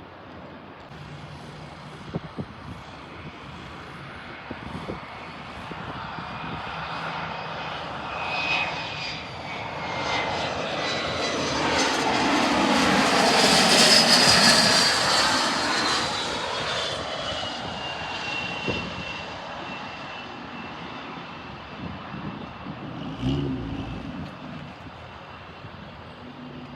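An airplane flying close past, its engine noise swelling to a peak about halfway through and then fading, with a high engine whine that drops in pitch as it goes by.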